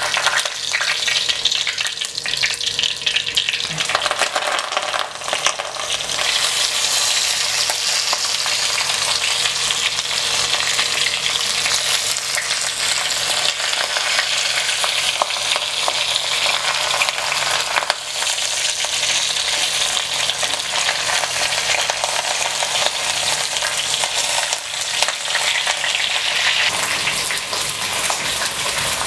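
Banana-leaf-wrapped karimeen (pearl spot fish) frying in hot oil in a clay pot, turned over at the start, with a steady sizzle that grows louder about six seconds in.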